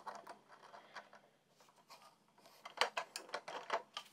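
Light taps, knocks and scrapes as small wooden toy car parts are handled and wood shavings are brushed across a wooden drill-press table, with no motor running. The loudest knocks come in a cluster about three seconds in.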